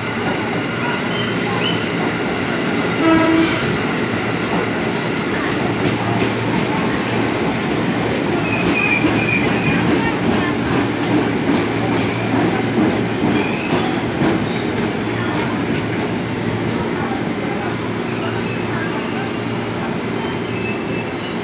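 Electric commuter train running into the platform and braking, with a steady rumble and rattle of wheels on rail. High thin squeals come in after a few seconds and recur more often as it slows.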